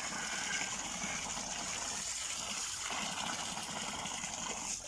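A stream of water pouring steadily into a steel basin full of water, splashing, as cleaned and scored fish are rinsed in it.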